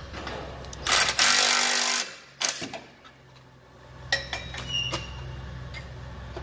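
An impact wrench runs in one loud burst of about a second, followed by a few light metallic clicks and clinks of tools.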